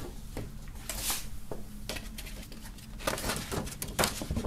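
A folded paper poster being handled and unfolded: intermittent rustling and crinkling of paper, with a few light clicks, busier near the end.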